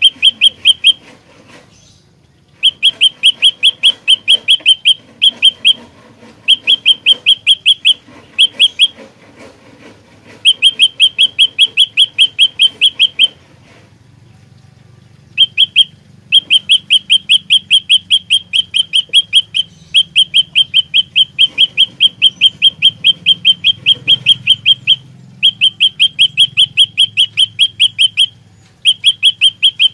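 Prenjak lumut songbird singing a loud, rapid series of sharp, high chirps, about eight a second, in bursts of one to three seconds with short pauses between and one longer pause midway.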